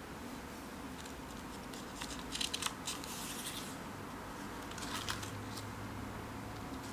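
Paper rustling as the pages of a spiral-bound sketchbook are handled and one page is turned: a burst of short rustles about two and a half seconds in and a shorter one around five seconds, over a steady faint hiss.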